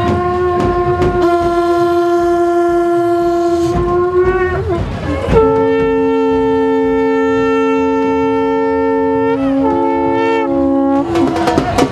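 Conch shells (shankh) blown in long held blasts. One steady note sounds first; after a short pitch slide about five seconds in, two conchs sound together on two different notes, and the upper one drops in pitch near the end. Sharp beats join in the last second.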